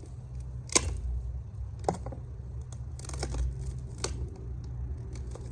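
Handling noise: rustling and several sharp clicks spread out over a few seconds, above a steady low rumble.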